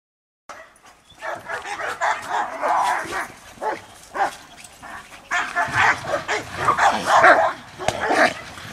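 Dogs barking and yipping in short, excited bursts, starting about half a second in.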